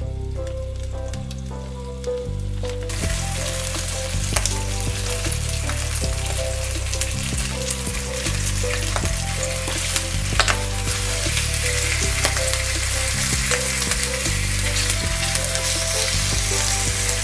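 Thick slices of boiled pork belly sizzling in an enameled cast-iron Staub braiser, re-seared so the skin turns chewy. The sizzle grows much louder about three seconds in, with a couple of sharp clicks of metal tongs against the pan.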